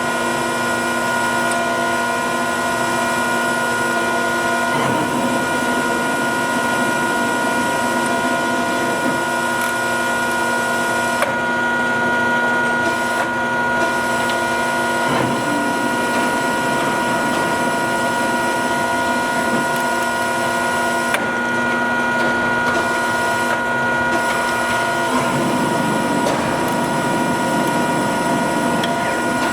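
Jones & Lamson Model 5-3 ram-type turret lathe running under power: a steady mechanical whine of several held tones, the lower tones dropping out and returning a few times, with an occasional faint click.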